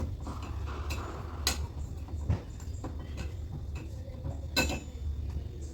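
A cocktail muddler crushing hibiscus petals, mint and lemon in the mixing vessel, with a few sharp knocks spread out over a few seconds. A low, steady hum runs underneath.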